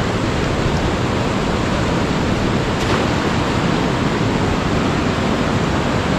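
Steady rushing of a fast, muddy mountain river running over rocks and small rapids close by.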